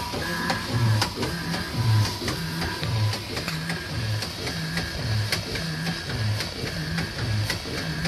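Steam launch's multi-cylinder steam engine running at a slow, even beat, its cycle repeating about once a second, with many sharp clicks over the top.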